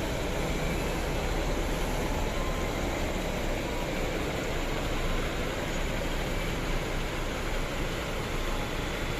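Steady, even rumble of a large coach's diesel engine mixed with road traffic noise, with no distinct events.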